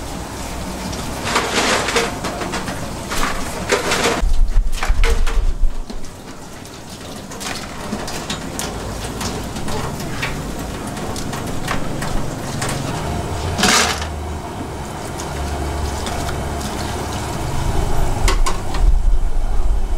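A metal ladle clanking and scraping in a wok of bubbling conch, then tap water running and splashing into a stainless steel sink as clams are rinsed under it, with sharp clinks now and then.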